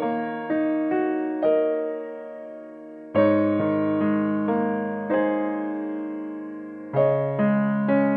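Background music: a slow, gentle piano melody, single notes and chords struck every half second or so and left to ring and fade.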